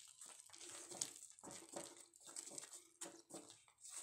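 Faint, irregular soft scraping of a wooden spatula stirring thick semolina halwa in a nonstick pan.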